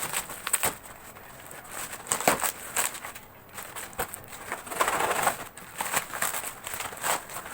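Packaging of a ring light and tripod set rustling and crackling in irregular bursts as it is handled and opened.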